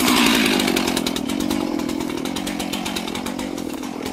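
Stihl two-stroke chainsaw running steadily just after being started, its engine note even with a fast, regular pulse.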